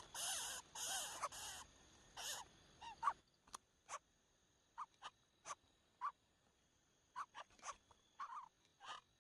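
Crow giving harsh caws, four in quick succession in the first second and a half, followed by short sharp chirps and clicks scattered irregularly.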